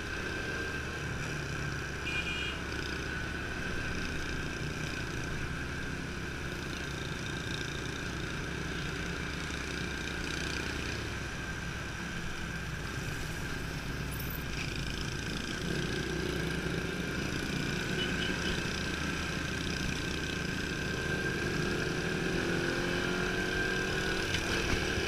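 Motorcycle engine running as the bike rides through city traffic, heard from a camera mounted on the bike. The engine pitch climbs over the last few seconds as it speeds up.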